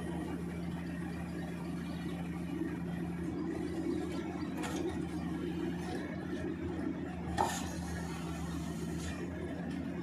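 Steady engine-driven drone of a hydraulic press-in sheet pile driver and its power unit running, holding one even pitch. A single sharp click stands out about seven and a half seconds in.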